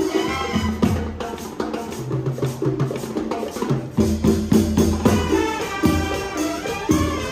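Latin band music: a steady percussion beat with bass under pitched melodic parts.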